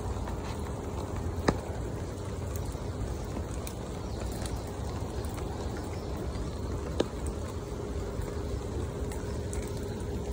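Rain falling steadily onto the surface of a shallow creek, an even hiss of many drops, with two sharp clicks standing out about a second and a half in and about seven seconds in.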